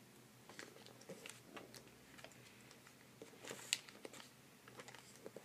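Faint rustles and light taps of origami paper being pressed and creased by hand, with a slightly louder crinkle about three and a half seconds in.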